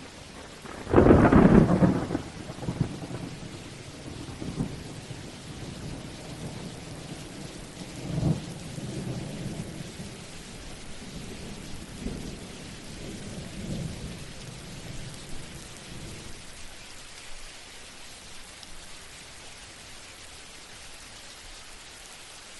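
Thunderstorm with steady rain. A loud thunderclap about a second in rolls into rumbling thunder, which swells again several times and dies away after about sixteen seconds, leaving only the rain.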